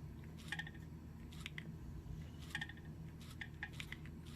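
Keys of an LG Venus (VX8800) phone being pressed while scrolling through its menus: about six short, faint clicks, three of them in quick succession after about three seconds, over a low steady hum.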